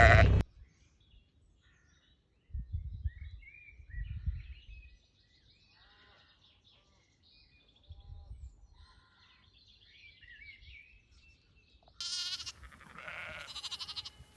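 Sheep bleating twice near the end, the first call loud. Before that, faint birdsong chirps and a few low rumbles.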